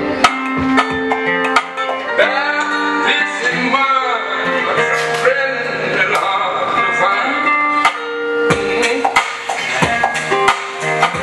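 Live jam music: plucked guitar under a melody line that slides up and down in pitch, with sharp percussive clicks from a looped backing keeping the beat.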